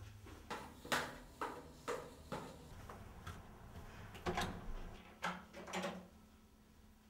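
A run of sharp knocks and clunks, about two a second for the first three seconds, then a few heavier clunks about four to six seconds in.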